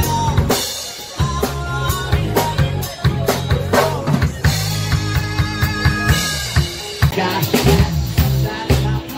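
Live band playing: a drum kit beat with kick, snare and rimshots over bass guitar and keyboard, with a brief break in the beat about a second in.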